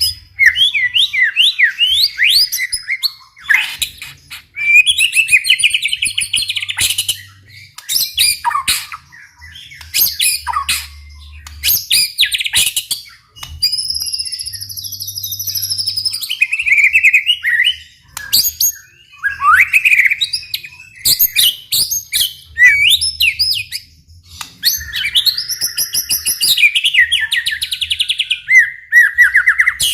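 White-rumped shama singing loudly and continuously, a varied song of whistled phrases, fast trills and sharp chattering notes in quick succession, with a few brief pauses.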